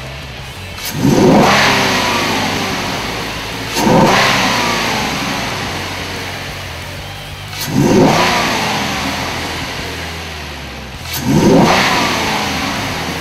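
2012 Ford Mustang's 3.7-litre V6, breathing through a newly fitted Airaid cold air intake, revved four times. Each rev rises sharply and then dies away slowly toward idle.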